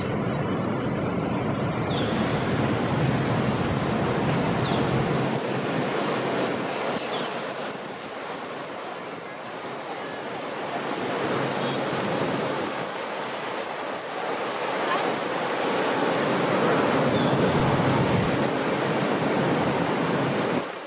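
Steady rushing of water and wind on the microphone. A low engine rumble from a passing motorboat cuts off about five seconds in.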